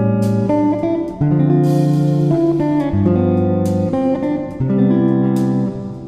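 Background instrumental music, with chords changing every second or so.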